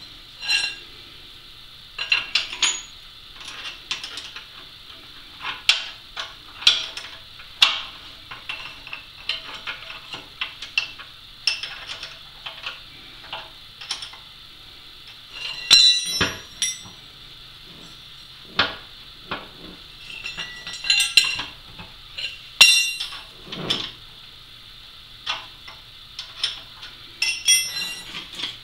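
Steel wrench and other hand tools clinking and clanking against steel as a threaded-rod foot is fitted and tightened under a machine base: irregular sharp metallic knocks, several heavier clanks in the middle and near the end.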